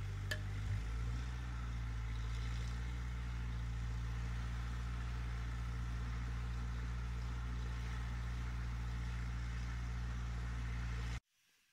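Steady compressed-air blast from a hose blowing rock dust out of a drill hole, over the low, even hum of the air compressor's engine. It cuts off suddenly near the end.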